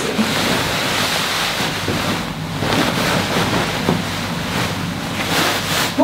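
Heavy wool coat rustling and brushing close against the microphone as it is swung on, a loud, even rushing noise.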